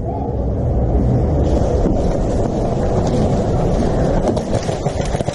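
Loud, steady low rumble of wind-like noise and handling on a body-worn camera's microphone as the player moves, with a few faint sharp clicks near the end.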